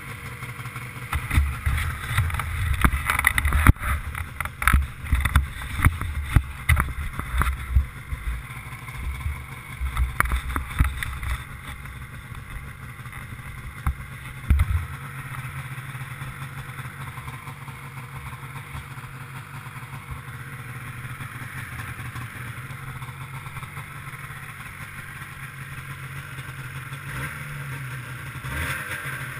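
Ski-Doo MXZ 670 snowmobile's two-stroke Rotax engine running through an aftermarket Walker exhaust can. For about the first eleven seconds it is broken by heavy irregular low thumps and knocks, then it runs steadily as the sled moves along, getting a little louder near the end.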